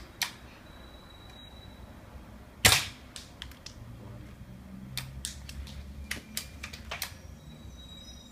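A single sharp shot from a scoped BB sniper rifle about two and a half seconds in, the loudest sound, with scattered lighter clicks before and after it.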